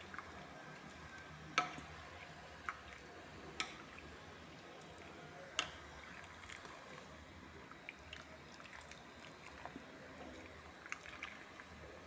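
Chicken pieces simmering in water in a pot: scattered sharp pops and ticks of bursting bubbles over a low steady hiss, the loudest pops about one and a half and five and a half seconds in.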